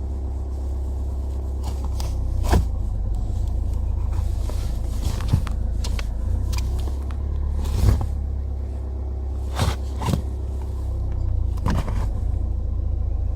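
Chevrolet Cruze 1.7 diesel engine turning with a steady low rumble, broken by about six sharp knocks at uneven intervals. The car's flywheel is known to need replacing.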